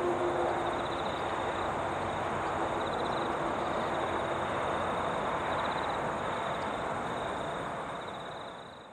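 Airbus A380 jet engines on the landing rollout: a steady rushing roar whose engine tones die away about two seconds in, then a smooth rush that fades out near the end.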